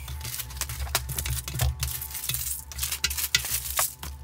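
Sped-up handling of foam deck pad pieces: the pieces are pulled apart and laid down on a surfboard, a quick run of clicks and rustles over a low hum.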